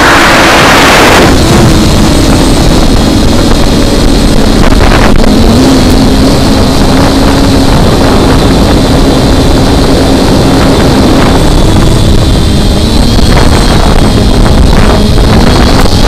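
Model aircraft's motor and propeller droning steadily in flight, the pitch wavering slightly as it flies, heard from the onboard camera under heavy wind rush on the microphone, with a strong gust of wind noise in the first second.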